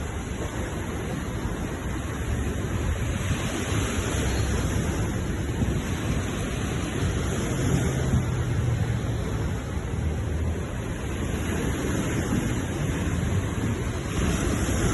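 Ocean surf: a steady rush of waves washing on a shore, swelling up about three seconds in and again near the end.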